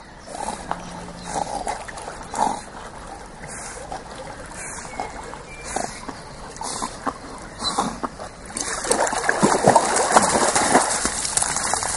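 A dog swimming in a pond, its paddling making soft, irregular splashes and lapping water. About eight and a half seconds in the splashing grows louder and busier as the dog wades out through the shallows.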